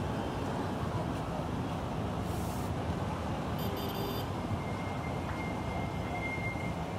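Busy street traffic: many motorcycle taxis and cars running and passing, a steady rumble.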